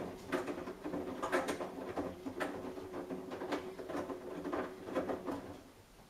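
Samsung Eco Bubble front-loading washing machine tumbling a load on its fast wash cycle: a steady motor hum with soft thuds and swishes about once a second as the laundry turns over in the drum. The drum stops turning just before the end and the sound falls away.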